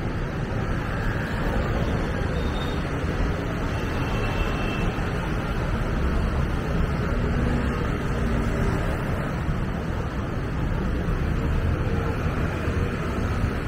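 Steady city road traffic noise: a continuous low rumble of passing vehicles with no single event standing out.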